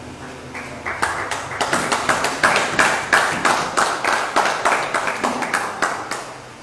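A small audience clapping after a shot, several claps a second, starting about half a second in and stopping just after six seconds.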